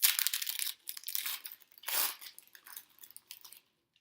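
Foil wrapper of a Panini Prizm basketball card pack being torn open and crinkled: dense crackling, loudest at the first rip and again about two seconds in, stopping shortly before the end.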